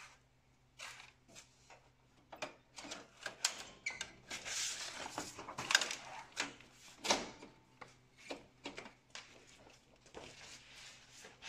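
Plastic clicks, knocks and rubbing from the hinged upper section of an Océ PlotWave 300 scanner being handled, lifted and shut. The short knocks come one after another and are busiest in the middle.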